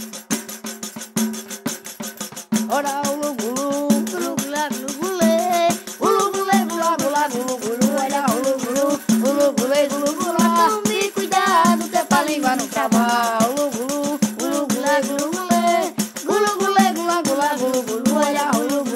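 Film soundtrack music: a voice singing a winding, bending melody over a steady low drone and fast, even percussion, the singing coming in about two and a half seconds in.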